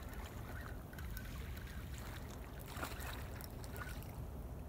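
Steady low rumble of flowing river water, with a few faint clicks.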